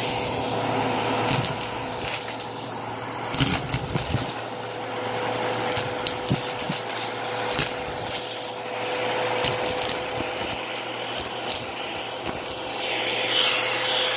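Vacuum cleaner running steadily with a high motor whine while sucking up coins from a carpet, with sharp clicks and rattles here and there as coins are pulled up the tube.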